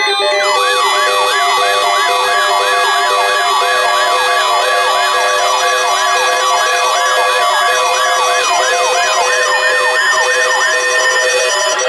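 Weather radio alarm sounding for a weekly test: a steady alert tone with an electronic siren-like whoop repeating about two and a half times a second over layered beeping tones. The steady tone stops about eight seconds in and the whoop stops near the end.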